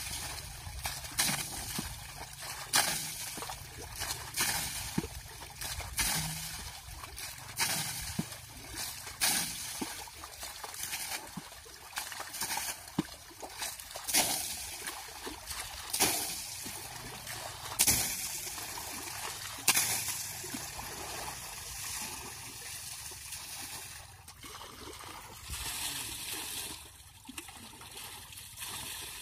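Pond water thrown from a small bucket, splashing over a tractor's engine and front wheel again and again, about every one and a half to two seconds, with the bucket sloshing as it is dipped between throws. Near the end the throws give way to softer, steadier pouring.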